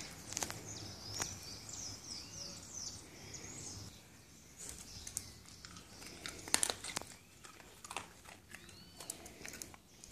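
Small dogs eating on a tiled floor: scattered crunches of chewing and clicks of claws on the tiles, with birds chirping in the background.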